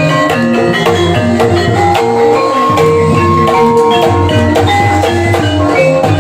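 Gamelan-style ensemble music accompanying an ebeg horse dance: mallet-struck keyed instruments ring out interlocking melodic notes over a steady drum pattern, loud and unbroken.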